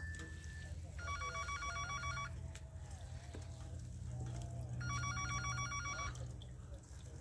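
A phone ringing with a rapid trilling ringtone: two rings, each lasting over a second, about four seconds apart.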